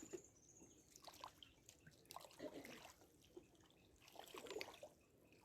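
Faint water trickling and dripping, with a few small scattered splashes.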